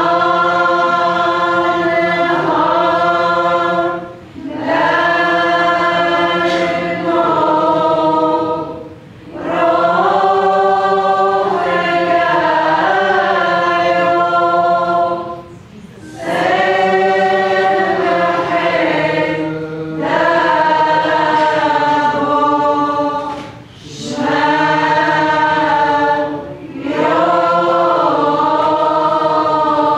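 Syrian Orthodox church choir singing a hymn, in sustained phrases of a few seconds, each ending in a brief pause.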